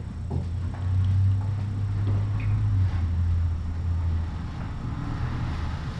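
Cat purring: a steady low rumble, strongest from about a second in until near the end.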